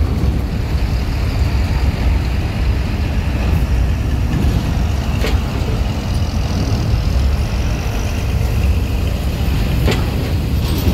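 Coach bus diesel engine running under load as it climbs a steel ferry loading ramp, a loud, steady low rumble. Two short sharp clicks come through, about five seconds in and again near the end.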